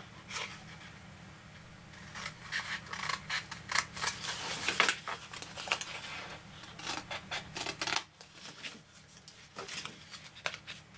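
Small scissors snipping through cardstock in a quick run of short cuts, thinning out to a few snips near the end.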